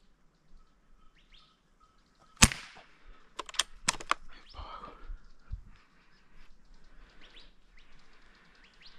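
A single sharp shot from a 5.5 mm (.22) Umarex Gauntlet PCP air rifle about two and a half seconds in, followed a second later by a few sharp clicks and then some dull low thumps. Birds chirp faintly throughout.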